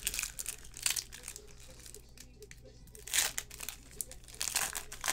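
Foil wrapper of a basketball card pack crinkling and tearing as it is ripped open by hand, in a few short bursts.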